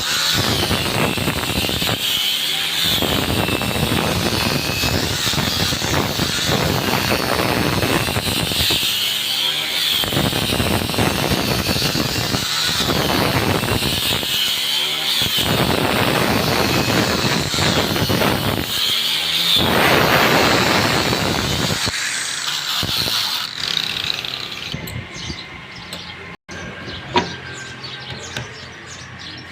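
A woodworking power tool running under load, with a wavering high whine, stopping briefly several times; it dies away near the end, leaving a quieter background and a single click.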